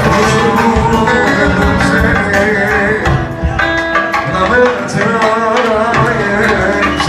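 Live Turkish band music in an instrumental passage of the song: melodic lines over a steady hand-drum rhythm.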